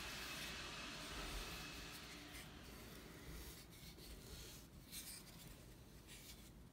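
Faint strokes of a paintbrush spreading wet paint over a door, the bristles brushing across the surface about four times. The paint is going over a water-putty patch.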